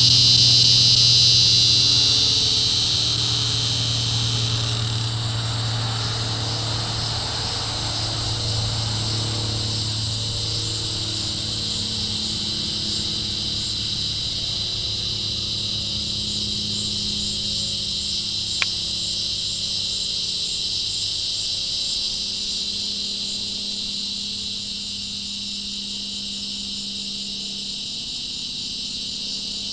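Resonant cicada (Tibicen resonans) calling in a long, unbroken high-pitched buzz that grows louder about five seconds in.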